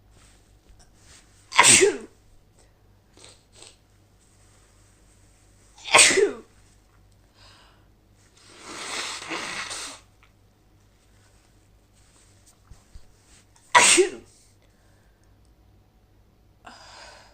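A woman with a cold sneezing hard three times, a few seconds apart. Between the sneezes come quieter breathing sounds, including one longer rush of breath about halfway through.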